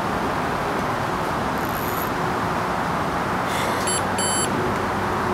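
Carp bite alarm giving two short electronic bleeps about four seconds in, over a loud steady rushing background noise.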